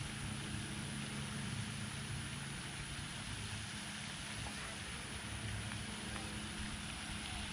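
A steady low motor hum over a constant outdoor hiss.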